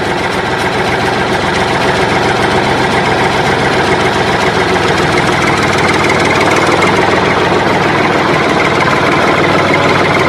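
A motor vehicle engine idling steadily.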